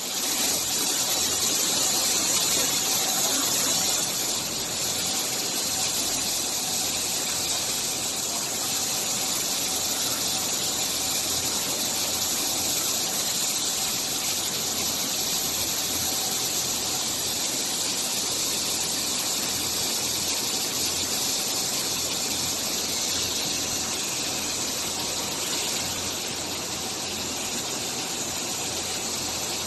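Steady high hiss of a running fabric-roll packing line and the factory machinery around it, with no distinct knocks or repeating cycle; slightly louder for the first few seconds.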